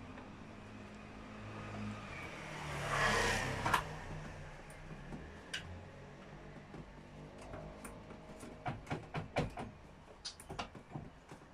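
Hand-assembly of a chainsaw's guide bar and chain, the engine not running: a scraping rustle about three seconds in, then a run of sharp clicks and knocks from the parts being handled and fitted in the second half.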